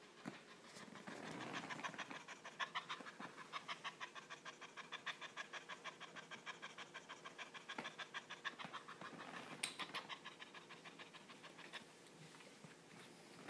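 Ginger cat making quick, even, rhythmic mouth or breath sounds close to the microphone, about five a second, for several seconds before stopping, with a sharp click just after they end.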